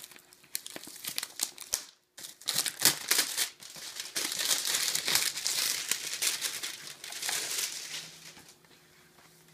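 Clear plastic shrink wrap being torn and peeled off a cardboard game box, crinkling and crackling. A few sharp crackles come first, then from about two seconds in a dense run of crinkling that dies away near the end.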